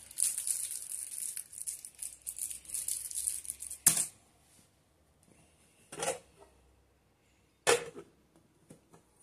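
Handling noises: a crackly rustling for about four seconds, then a sharp click and two more separate clicks or knocks with quiet between.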